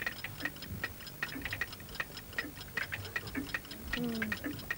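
Game-show countdown clock ticking quickly and evenly, about four ticks a second, as the timer runs down its last seconds.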